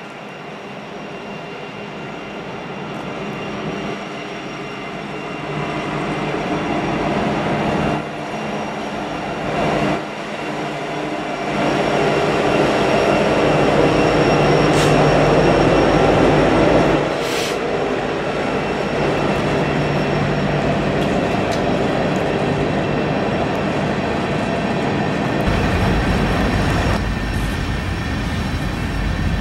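Union Pacific freight train rolling past: diesel locomotive and freight cars running by, growing louder to a peak in the middle of the passage and then dropping suddenly. Near the end, another Union Pacific diesel locomotive comes up with a deeper rumble.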